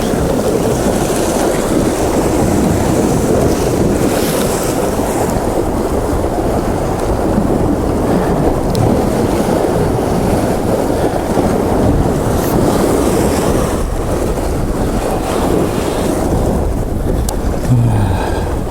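Rough sea swell washing against shore rocks, with wind buffeting the microphone: a steady, loud rushing noise.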